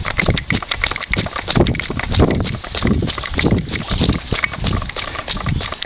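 A runner's footfalls on wet asphalt in a steady rhythm of about two to three a second, mixed with the runner's hard breathing.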